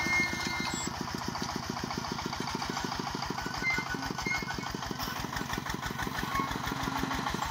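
Single-cylinder diesel engine of a công nông farm tractor-truck chugging steadily in an even, rapid beat of about nine firings a second.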